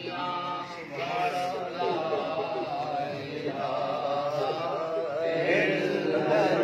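Men's voices chanting a melodic recitation, with held, drawn-out notes, growing louder toward the end.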